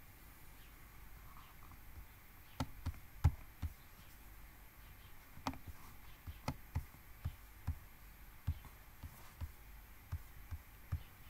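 Computer mouse clicks and dull knocks on the desk, about fifteen in all and irregularly spaced, over a faint steady background hum.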